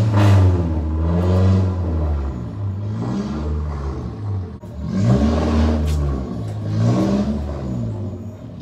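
A motor vehicle's engine revving up and down again and again, its pitch rising and falling in two main loud surges with a brief dip between them, then cutting off abruptly.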